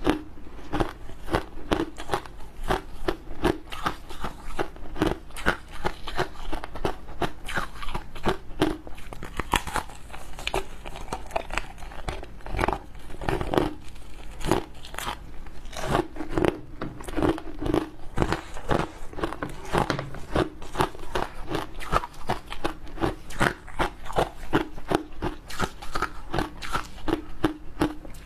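Close-miked biting and chewing of coloured foam ice: a rapid, steady run of crisp crunches as the frozen block is bitten and crushed between the teeth.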